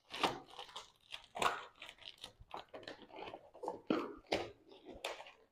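Plastic packing material being handled, an irregular run of short crackles, rustles and crinkles.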